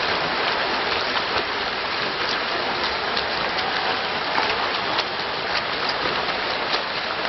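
Pool water splashing from swimmers' front-crawl arm strokes and kicks: a steady hiss of churned water with many small, sharp splashes.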